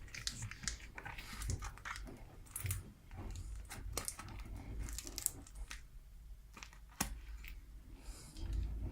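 Miele Softtronic washing machine mid-wash: a low steady rumble from the turning drum, with irregular sloshing, swishing and clicking as the laundry and water tumble.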